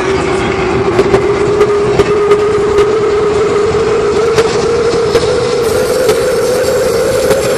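Loud electronic dance music from a festival sound system, heard from within the crowd: a synth note rising slowly and steadily in pitch over a dense, noisy wash of sound, with scattered sharp cracks.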